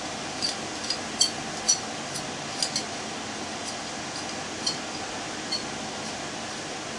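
Small, sharp metallic clicks and clinks, scattered irregularly, from screws and a hand tool being worked out of a hot tub pump motor's housing. They sit over a steady, fan-like background hum.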